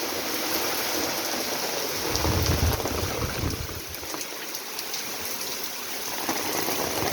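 Heavy rain pouring down in a steady hiss, with a low rumble from about two seconds in and again near the end.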